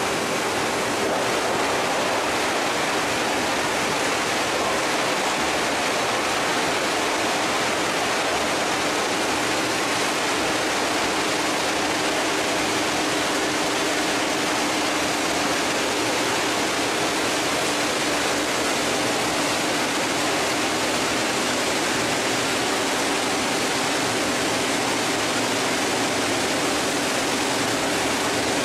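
PET bottle recycling and washing machinery running: a steady, even rushing noise with a faint low hum underneath.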